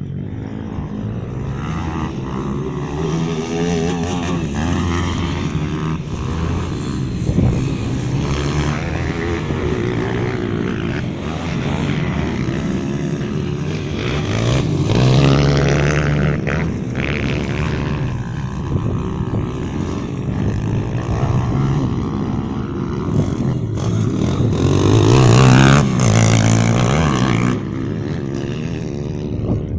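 Pit bike engines revving on a dirt track, pitch rising and falling as the riders open and close the throttle and shift. The engines are loudest about halfway through and again near the end.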